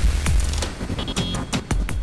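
Electronic intro music with heavy bass drum hits.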